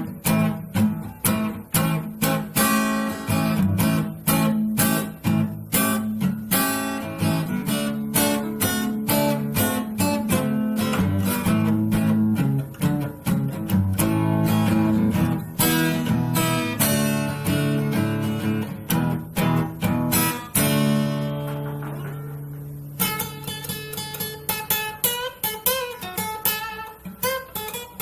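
Yamaha FX315 acoustic guitar being strummed in quick rhythmic chords. About three-quarters of the way through, a chord is left ringing, then single notes are picked, some with slides in pitch.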